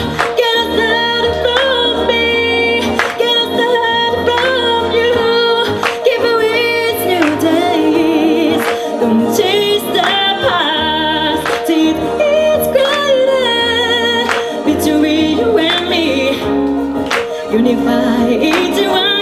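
A woman singing a song into a microphone over instrumental accompaniment.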